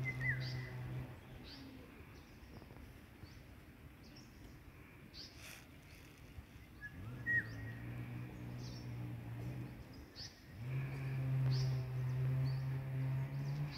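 Birds calling with short, high chirps about once a second, with a brief whistled note at the start and again about seven seconds in. A low, steady drone comes and goes under them and is loudest from about eleven seconds to near the end.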